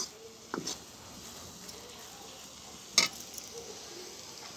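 Steel spoon stirring a thick, crumbly mixture of milk-fat residue, milk and sugar in an iron kadhai. Two sharp clinks of spoon on pan, the louder about three seconds in, over a faint steady sizzle.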